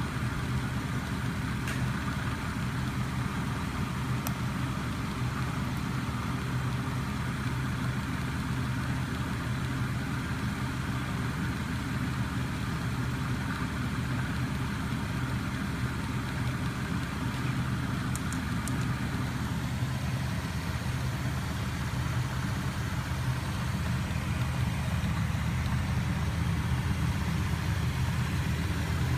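Homemade magnet-motor rig running, its 12 V DC electric starter motor turning crankshafts and spinning neodymium magnet discs: a steady low mechanical hum with a few faint ticks, a little louder near the end.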